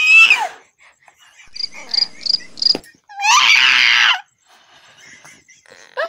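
Toddler crying loudly in two bursts, one at the start and another about three seconds in.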